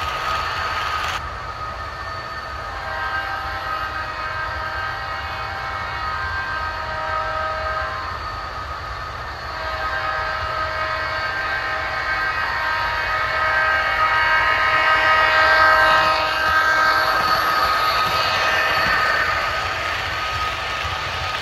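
HO-scale model passenger train running past, led by SDP-40F diesel models. A low rumble runs under a chord of several steady tones held together, and the chord shifts twice.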